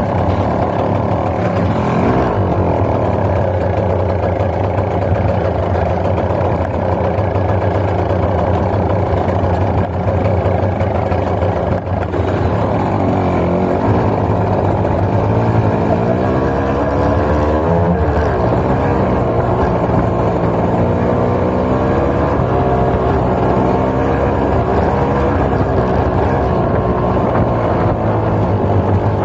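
Off-road motorcycle engines running, the dirt bike carrying the camera and a 50cc Vespa scooter just ahead, with the revs rising and falling repeatedly in the second half.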